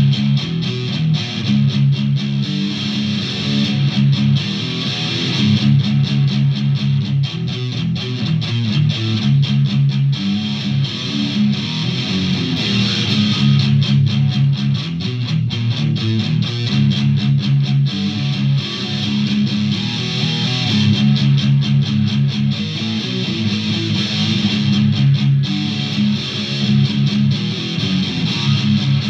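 Solid-body electric guitar played with a pick through an effects pedal: continuous riffing with many rapid picked notes.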